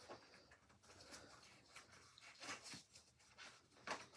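Faint handling noises of a bicycle tire and inner tube being worked by hand: scattered soft rustles and small clicks, with a sharper click near the end.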